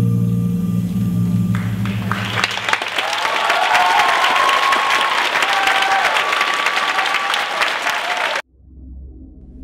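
Performance music ends on a held low note while an audience breaks into loud applause and cheering. The applause cuts off abruptly near the end.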